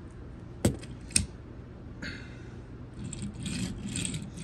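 Small plastic push-along Winston toy being handled: two sharp clicks about half a second apart within the first second or so, then a light scratchy rattle of its wheels as it is set down and pushed along a hard floor.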